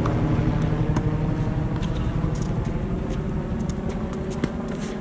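Steady engine hum of a passing motor vehicle, slowly fading, with a few sharp knocks of a tennis ball struck by a racket.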